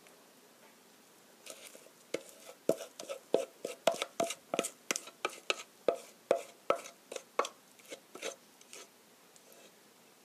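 Wooden spatula scraping and knocking against a stainless steel mixing bowl as thick pancake batter is scraped out into a frying pan: a run of short knocks and scrapes, about two to three a second, starting a second and a half in and stopping near the end.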